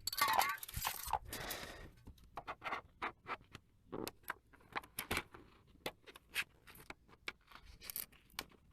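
Loose, peeling paint being scraped and picked off the car by hand: a quick run of scraping about the first second, then a string of irregular short scrapes and clicks.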